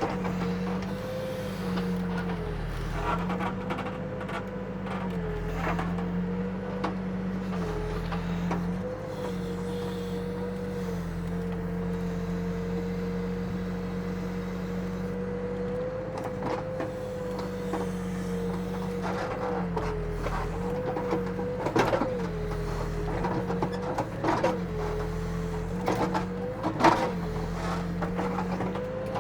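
Backhoe engine running steadily, its pitch dipping and recovering again and again as the hydraulics take load while the bucket works the fill dirt. A few sharp knocks come in the second half.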